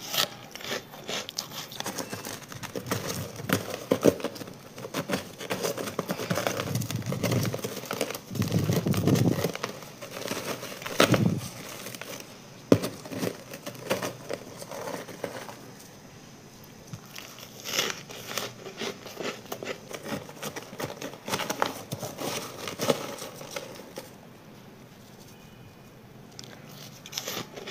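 Thick, powdery freezer frost crunching and crackling as gloved hands break and pull chunks of it from a plastic box, with the plastic rustling along. The crunches come irregularly and are loudest in the middle of the stretch.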